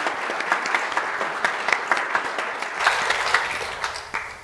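A congregation applauding: many hands clapping together, dying away near the end.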